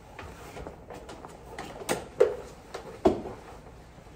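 Fabric boat cover rustling and flapping as it is pulled off the boat, with several sharp knocks or snaps, the loudest about two and three seconds in.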